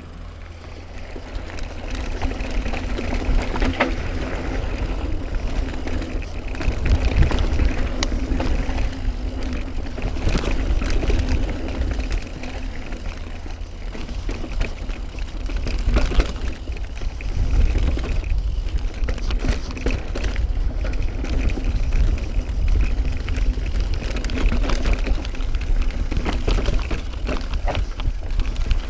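Mountain bike riding down a rocky dirt downhill trail, heard from a handlebar-mounted camera: tyres rumbling over dirt and rock, with frequent sharp knocks and rattles from the bike hitting rocks and roots, and a heavy wind rumble on the microphone. It gets louder over the first couple of seconds as the bike picks up speed.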